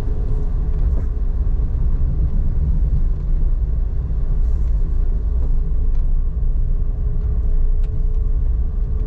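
Steady low rumble of a car's engine and tyres heard from inside the cabin as the car moves slowly.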